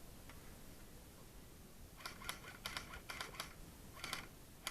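Airsoft guns firing in short bursts of rapid clicks, starting about two seconds in.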